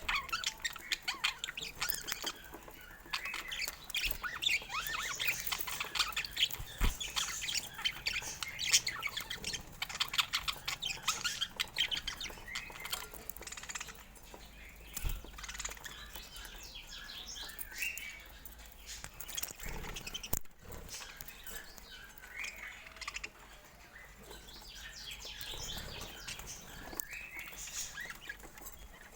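Budgerigars chirping and chattering: many short, quick chirps and squawks overlapping, busier and louder in the first half, thinning out later.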